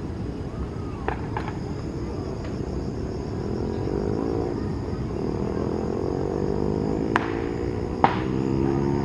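A distant engine drone that rises slowly in pitch through the second half, over a low steady rumble and a high steady insect trill. A few sharp clicks cut through, the loudest two near the end.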